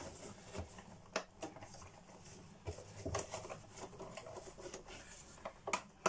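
Quiet handling noises as a Numatic Henry cloth dust bag is rustled and pushed into a plastic vacuum-cleaner bag housing, with a few scattered light clicks and knocks and a sharper pair near the end.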